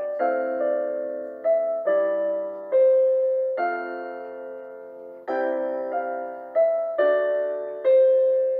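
Slow, gentle background music on piano: chords struck about once or twice a second, each fading away before the next.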